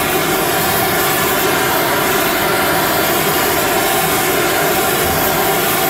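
Fusewelder oxy-acetylene torch burning steadily with a neutral flame, a constant, even hiss, while it preheats a metal block toward about 300 degrees.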